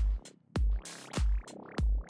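Electronic background music with a heavy kick drum about every 0.6 seconds and rising swooshing sweeps between the beats.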